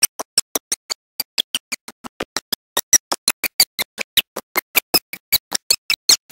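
Chopped, stuttering audio: a rapid, even train of short bursts, about five to six a second, with silence between each, so that nothing comes through as clear speech or sound.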